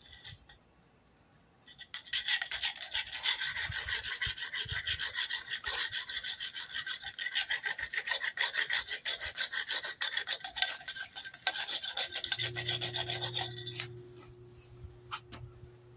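Friction fire roll: a wooden board worked rapidly back and forth over a tinder roll on a concrete slab, making a fast, steady rasping rub that starts about two seconds in and stops near the end. A low steady hum comes in shortly before the rubbing stops.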